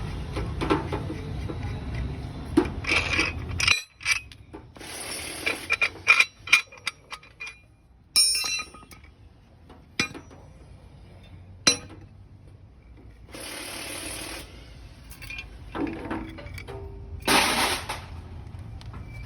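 Metal parts and hand tools clinking and tapping during work on a truck clutch pressure plate, with a few short hissing bursts about five, fourteen and seventeen seconds in. A low hum runs under the first few seconds and stops abruptly.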